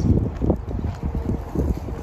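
Wind buffeting the microphone in a low rumble, with the irregular thuds of footsteps while walking.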